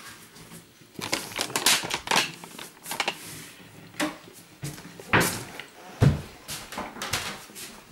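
Cardboard boxes being handled and set down: an irregular run of knocks, scrapes and rustles.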